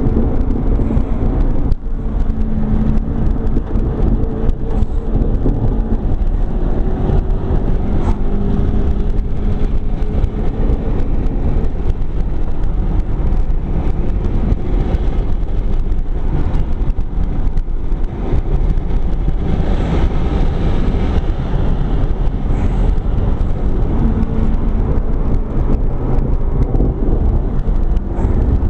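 McLaren 12C's twin-turbocharged 3.8-litre V8 heard from inside the cabin at racing speed. The engine note rises and falls with the revs over heavy road and wind rumble.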